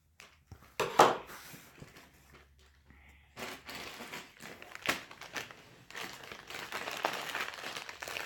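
Scissors cutting through cardboard: crunching snips and crackling, with a sharp crunch about a second in and another near five seconds.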